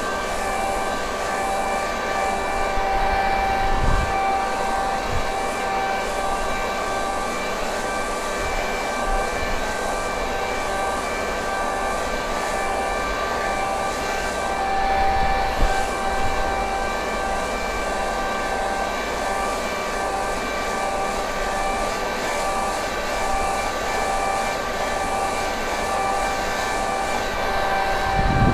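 Leaf blower running steadily at a constant speed, blowing up loosened lawn thatch: an even whine over rushing air.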